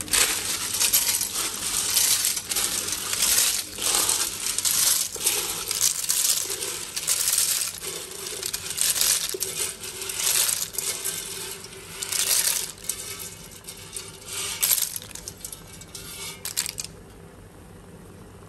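Ghonghi water snails in their shells tipped into a metal wok and stirred with a spatula: the hard shells clatter and rattle against each other and the pan in an irregular stream, which stops near the end.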